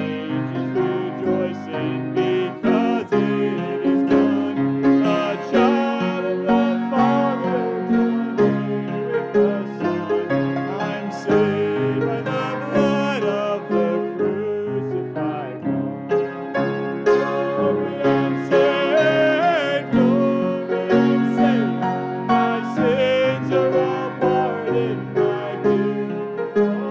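Congregation singing a hymn with grand piano accompaniment, continuous throughout.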